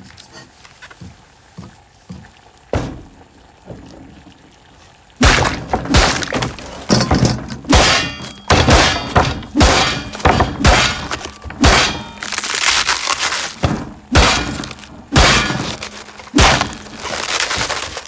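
A cabbage and other produce smashed and torn apart by hand on a wooden table for foley. A quiet start of light handling gives way, about five seconds in, to a rapid run of loud breaking and thudding impacts.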